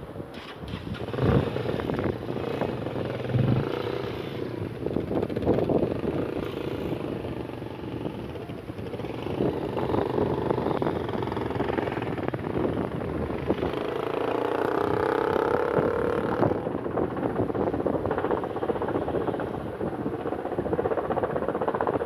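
Firefighting helicopter flying over: a steady rotor and engine drone whose pitch shifts and swells for a couple of seconds in the latter half.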